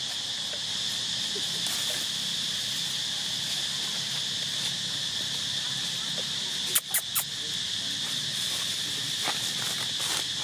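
Steady chorus of insects, a constant high buzz, with three sharp clicks in quick succession about seven seconds in.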